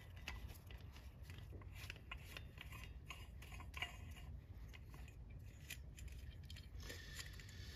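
Faint, irregular small clicks and scraping of a plastic floodlight lamp socket being twisted and unscrewed by hand, over a steady low rumble.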